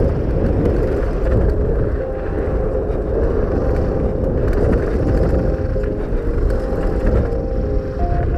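Mountain bike descending a dirt trail at speed: a steady rush of wind on the camera microphone mixed with the rumble and rattle of tyres and bike over the ground.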